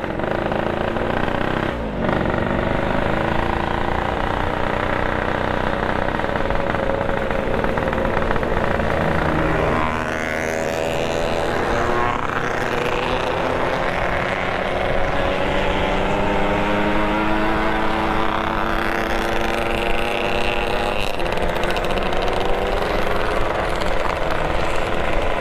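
Motorcycle engine running under way, its pitch rising and falling as the rider opens and closes the throttle.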